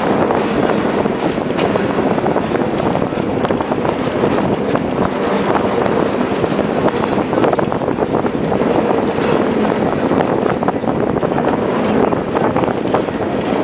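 San Francisco cable car in motion: a steady rattling rumble of its steel wheels on the rails and the running cable under the street, dotted with many small clicks.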